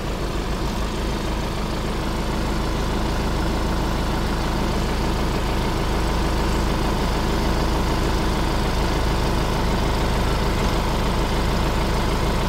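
Kubota farm tractor's diesel engine running steadily, growing a little louder over the first two seconds and then holding an even note.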